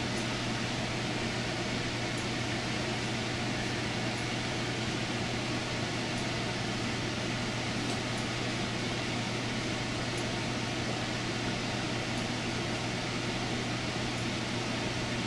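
Steady mechanical hum: an even hiss over a constant low drone.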